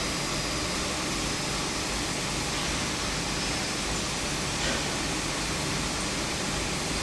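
Steady background hum and hiss, even and unchanging, with no distinct mechanical strokes.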